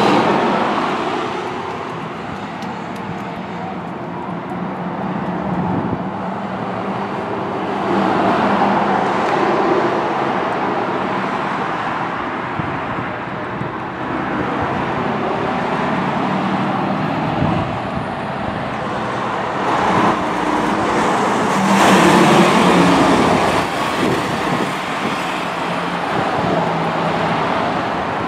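Street traffic of semi trucks and cars: diesel engines running and tyres on the road. The noise swells loudest about three quarters of the way through as a tanker semi drives past.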